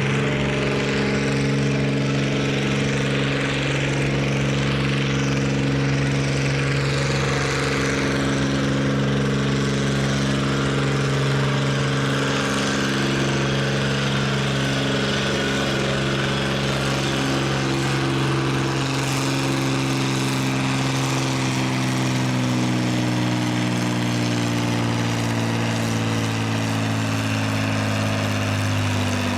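A farm stock pulling tractor's diesel engine running hard at steady high revs, as on a pull down the track. Its note sags slowly lower over the last several seconds as the engine lugs down.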